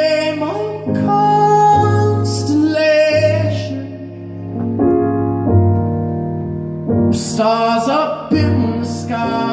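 A man singing long held, wordless-sounding notes over piano chords, a new chord struck every second or two.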